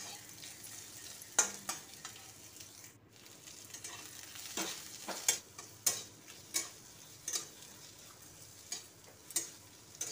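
Sliced onions and whole spices frying in oil in a metal kadhai: a faint steady sizzle, broken by about a dozen short scrapes and knocks of a wooden spatula as they are stirred.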